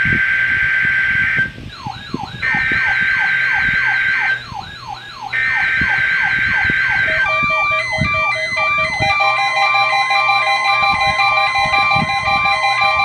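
NOAA Weather Radio test broadcast sending its SAME header three times: buzzy two-tone digital data bursts with short gaps between them. Weather alert radios answer it with their alarms: first a rapidly repeating falling warble, then, about seven seconds in, several more radios beeping at different pitches, triggered by the Required Weekly Test.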